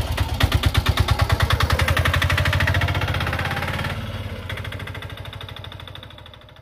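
Piaggio Ape auto-rickshaw's single-cylinder engine running with a steady beat as the three-wheeler pulls away, then fading as it drives off.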